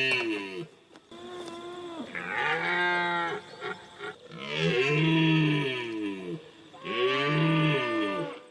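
Male red deer (stag) bellowing: a series of long, deep roars, each rising and then falling in pitch, one ending just in, then three more at roughly two-and-a-half-second intervals. It is the stag's rutting call, made to show prowess and draw females to the herd.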